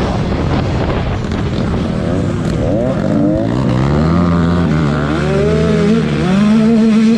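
Several racing dirt-bike engines revving hard and shifting, their pitches climbing and falling and overlapping as the bikes run past.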